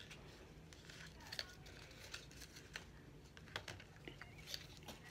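Faint rustling and a few light clicks of plastic earbud packaging being handled as the spare ear tips are worked out of it.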